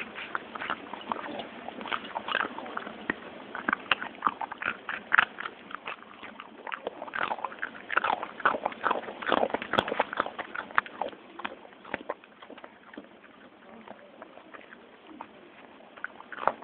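A dog chewing and eating treats right at the microphone: quick, irregular wet clicks and snaps of chewing. They are busiest for the first ten seconds or so and thin out in the last few seconds.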